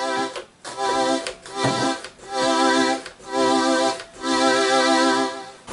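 Yamaha DX11 FM synthesizer playing a series of about six held chords with short gaps between them, while its volume slider is worked. The slider has just been treated with DeoxIT contact cleaner, and no crackle comes through.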